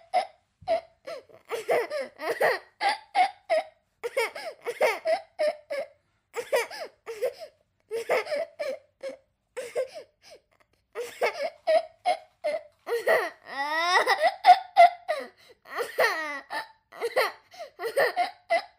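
A young child's voice in rapid, choppy high-pitched bursts, with one longer wail that rises and falls about fourteen seconds in.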